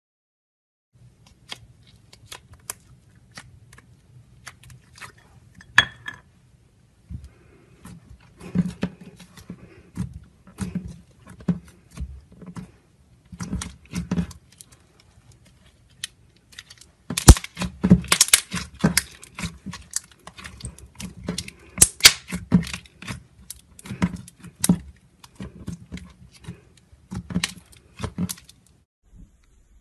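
Slime being squeezed and pressed flat by hand, giving a run of sharp clicks and pops, sparse at first and denser and louder from a little past halfway.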